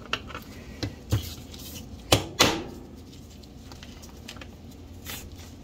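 Steering shaft parts and a plastic tube retainer being handled and fitted by hand: scattered light clicks and knocks, with two sharper knocks a little past two seconds in, the second ringing briefly.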